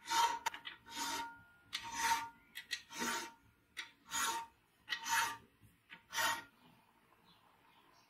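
Flat hand file being pushed across the end of a brass rod, in strokes of about one a second. The filing stops about six and a half seconds in.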